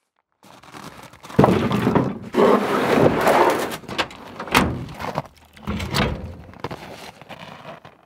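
Metal clanks and thunks as a pickup truck's tailgate is handled and a trailer coupler and its safety chains are worked at the hitch. A noisy clatter rises about a second and a half in, then comes a run of separate knocks, the heaviest about six seconds in.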